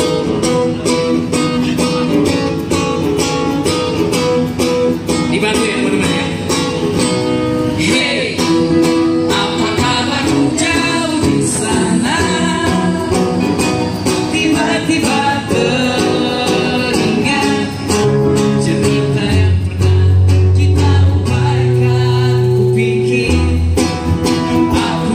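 Live acoustic band performance: a male singer over two strummed acoustic guitars, with hand percussion from a cajon player keeping a steady beat.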